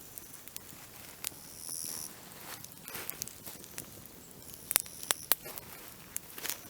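Grasshoppers chirping in short bursts, twice, against a quiet background, with scattered sharp clicks and crackles. The loudest clicks come in a quick cluster about five seconds in.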